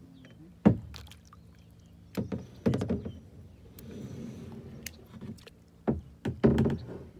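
A kayak being paddled through calm water: the paddle splashing and dripping, with several sharp knocks of the paddle against the kayak, the loudest about two-thirds of a second in and a cluster near the end.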